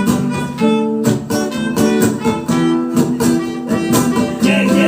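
Live reggae tune played by a band in an instrumental passage between vocal lines, with guitar prominent.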